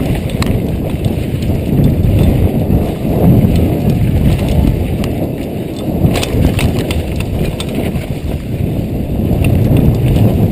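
Downhill mountain bike running fast over a rough dry dirt trail: knobby tyres rumbling over dirt and loose rock while the chain and frame clatter. A cluster of sharp knocks comes about six seconds in.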